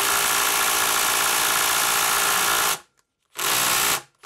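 Cordless impact driver hammering on the Allen bolt that holds a motorcycle fork's damper rod in the bottom of the fork leg, working the stubborn bolt loose. One long run of about three seconds, a short pause, then a second short burst.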